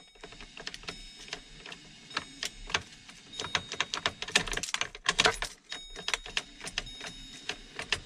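Irregular small clicks and rattles as the key is worked in a Chevy Silverado's steering-column ignition lock, with the key ring jingling.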